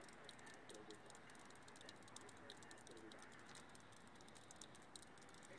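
Faint, rapid, irregular clicking of a white-tailed deer crunching shelled corn kernels as it feeds.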